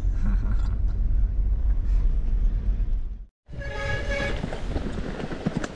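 Heavy low rumble of wind and rattling from a mountain bike ride, which cuts off suddenly a little past three seconds in. Then comes a brief high squeal with a ringing, horn-like tone, followed by clattering.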